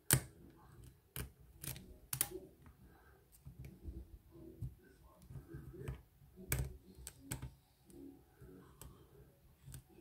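Faint metallic clicking and scratching of a hook pick and tension wrench working the pin stack of a BKS oval lock cylinder during single-pin picking, with a handful of sharper clicks scattered through.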